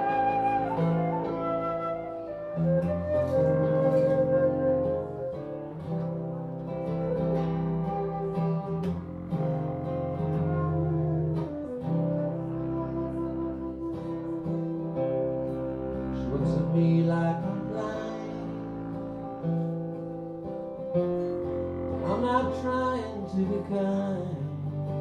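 Live acoustic instrumental by a trio: flute melody over a strummed acoustic guitar and an upright bass played with a bow.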